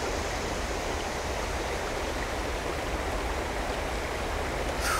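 Creek water running steadily over rocks, an even rushing.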